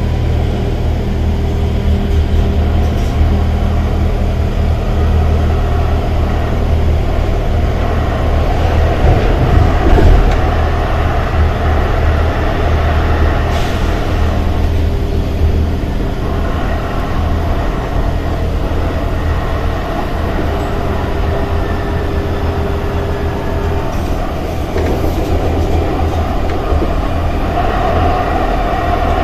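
Charleroi metro tram running on its rails, heard from inside the front of the car: a steady low rumble of wheels on track with a few steady tones above it, loudest about ten seconds in.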